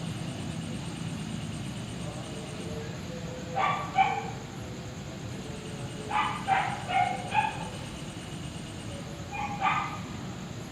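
A dog barking in short groups: two barks, then four, then two more near the end. Under them runs a steady low background rumble.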